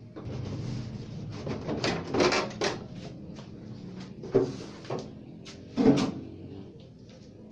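Irregular knocks and clatters, like things being handled or set down on a workbench, over a low steady hum. The loudest knocks come about two seconds in and again near six seconds.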